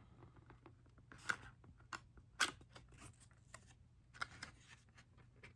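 A small cardboard perfume box being handled and opened by hand as the spray bottle is taken out: scattered light rustles and small clicks, a few sharper than the rest.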